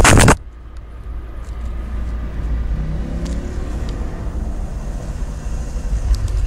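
Bass-heavy music through the car's subwoofer cuts off just after the start, leaving the steady low rumble of the Citroën Saxo VTS's engine idling.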